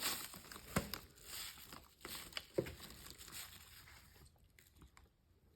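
Handling sounds of an instant electric water-heater faucet being set in place: a few light knocks, two sharper ones about a second and two and a half seconds in, with faint rustling between.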